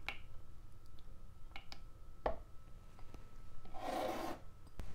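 Light clicks and knocks of a glass bowl and silicone spatula against a plastic pouring container as melted oil is scraped in, with one heavier knock a little past two seconds in. A short rubbing scrape follows near the end as the container slides on the countertop.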